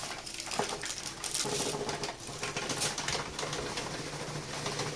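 A rapid run of light clicks, taps and rustles from hands working in a kitchen, with a faint steady low hum starting about a second and a half in.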